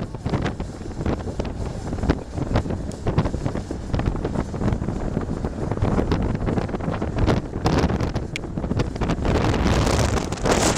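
Wind buffeting the microphone: a gusty, rumbling noise that grows louder near the end.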